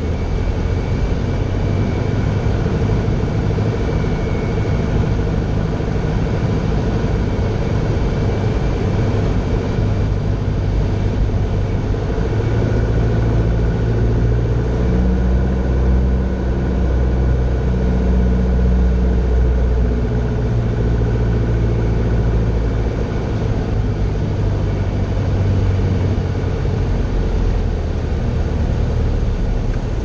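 Grumman Tiger's 180 hp piston engine and propeller, heard from the cockpit, running steadily on final approach to landing; the engine note shifts a little around the middle.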